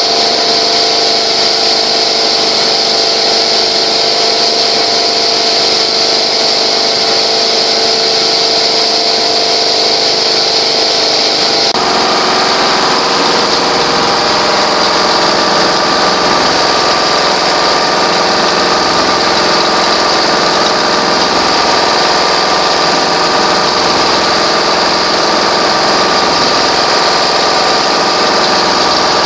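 High-speed multi-needle quilting machine running steadily, its rows of needle heads stitching quilted fabric in a continuous mechanical hum. The sound's character changes abruptly about twelve seconds in.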